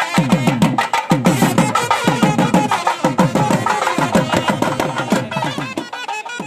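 Double-headed hand drums beaten fast in repeated quick flurries, with a steady sustained tone held above the drumming; the sound eases off near the end.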